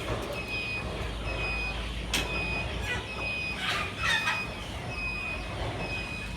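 An electronic beeper sounds a short, high, steady beep about once a second over a low steady hum, with a few short chicken squawks in between.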